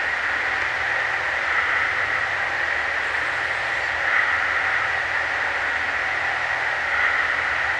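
Steady droning chorus of a night-time swamp, a dense high buzz that swells slightly about four seconds in and again near the end.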